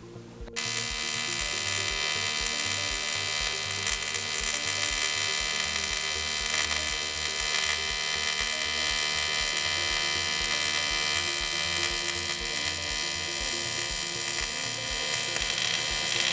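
TIG welding arc from a Parweld XTT212Di, buzzing steadily as a bead is run on steel plate. It starts suddenly about half a second in and cuts off sharply near the end as the arc is broken.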